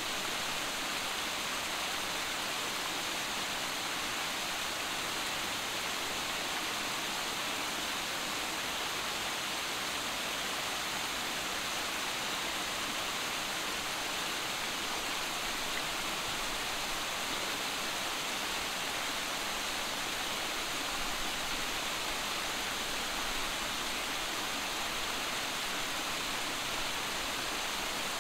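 Small waterfalls cascading over boulders in a rocky stream: a steady, even rush of splashing water.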